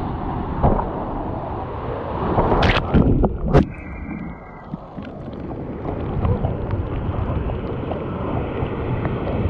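Breaking whitewater rushing and splashing against a paddleboard, heard through a GoPro mounted on the board's nose, with wind and spray buffeting the microphone. A few sharp splashes hit about three seconds in, after which the sound goes briefly muffled as water covers the camera.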